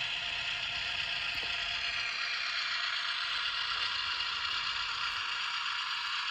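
HO-scale model train running on the track, its small motor and gears whirring steadily with a faint mechanical rattle.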